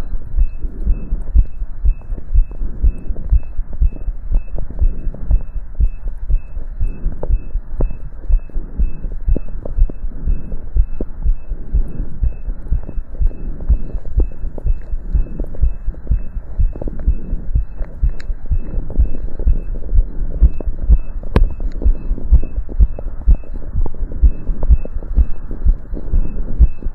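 Human heart sounds heard through a stethoscope, a quick, even run of low beats from a heart working hard during exercise.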